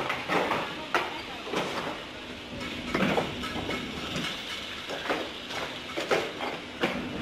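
Fired clay bricks clinking and clacking against each other as they are stacked by hand onto carts: sharp, irregular knocks, about one or two a second.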